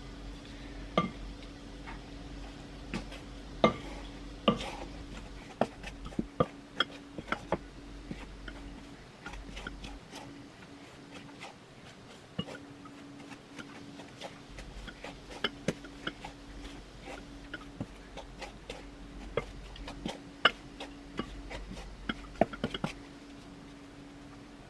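Spoon knocking and scraping against a mixing bowl while stirring thick cookie dough: irregular sharp clinks, sometimes several in quick succession, over a steady low hum.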